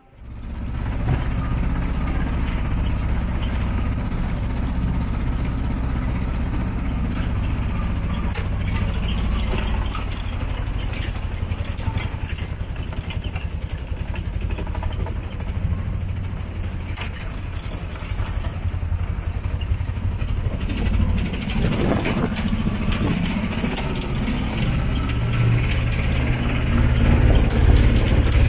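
Small motor-vehicle engine running steadily, heard from on board a tuk-tuk moving through town streets, with a low drone and road noise that get louder near the end.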